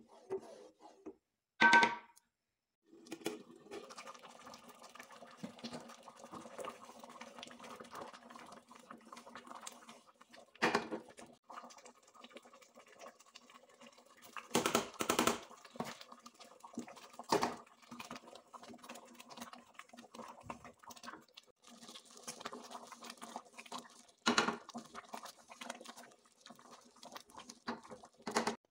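Cooking sounds: a wooden spatula stirring in a metal pot, with a few sharp knocks of the spatula against the pot over a low steady hum. A brief ringing clink comes near the start.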